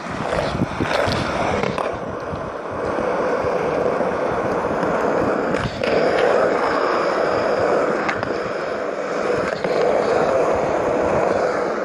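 Skateboard wheels rolling on smooth concrete close to the microphone: a steady rumble, with a sharp clack now and then as the wheels cross joints between the slabs.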